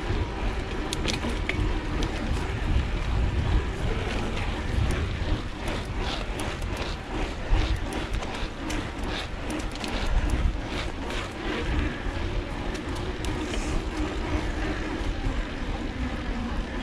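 Mountain bike rolling along a concrete-slab path: wind rushing over the camera's microphone and tyre rumble, with frequent short clicks and rattles from the bike.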